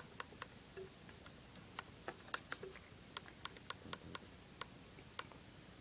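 Sharp little clicks at uneven spacing, a few a second: the buttons of a Nikon Coolpix L310 compact camera being pressed while stepping through the date and time settings.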